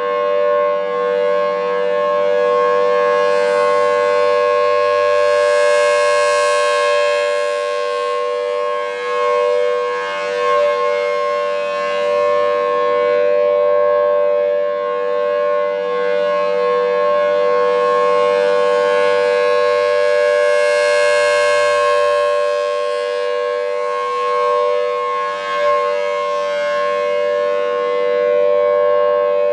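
Federal Signal Thunderbolt 1000AT tornado siren sounding its full alert, a loud steady tone of two close pitches together. It swells brighter twice, about fifteen seconds apart, as the rotating horn sweeps past.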